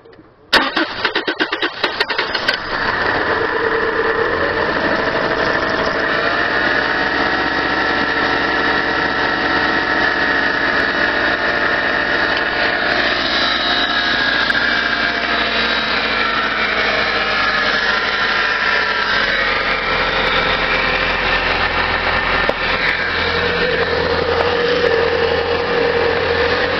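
A 1997 Subaru Outback's flat-four engine is cranked by the starter for about two seconds, catches, and then runs steadily with several whining tones that drift slightly in pitch. The hard cranking is put down to the tank being very low on fuel.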